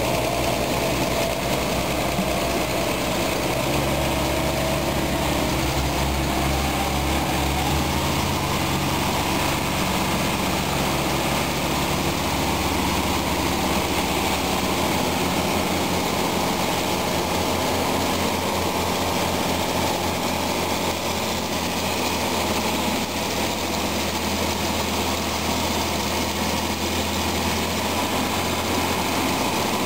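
Diesel engines of two farm tractors, a Claas-Renault 110.14 and a John Deere 6930, running steadily as they tow a stuck beet lorry, the engine note shifting a little now and then.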